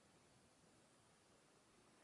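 Near silence: faint steady hiss of room tone.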